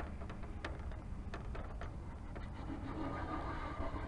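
Wind rumbling on a small camera's microphone, with scattered light clicks and taps throughout.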